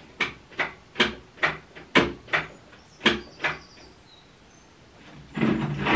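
A run of about eight sharp knocks, roughly two a second, stopping about three and a half seconds in; near the end a louder, longer sound with a steady low pitch.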